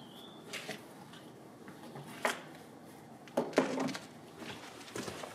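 A few light knocks and scrapes of hands working around the open boot opening of a car, scattered over several seconds, the loudest about three and a half seconds in.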